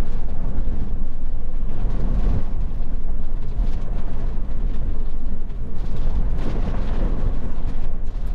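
Strong wind from a nearby tornado buffeting the microphone: a loud, deep, rumbling rush that rises and falls in gusts.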